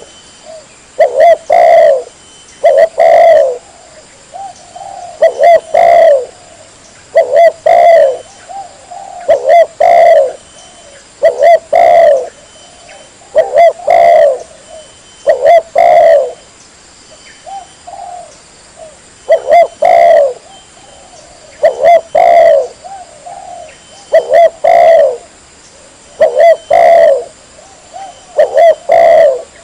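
Spotted dove (tekukur) cooing loudly and repeatedly, in short phrases of two or three low coos that come about every two seconds.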